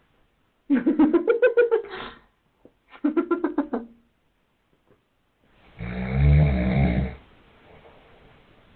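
A man snoring. In the first four seconds there are two bursts of fast, pulsing, rattling sound that rise in pitch. About six seconds in comes a long, loud, deep, rasping snore, followed by faint breathing.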